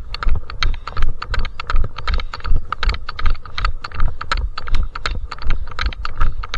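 A trail runner's footsteps on a mountain path: quick, even steps, several a second, over a low rumble of the moving microphone.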